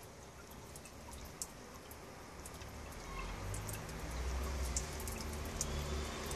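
Faint dripping and trickling of water as a small 12 V DC submersible pump pushes water up a clear plastic tube. A low rumble comes up about three seconds in.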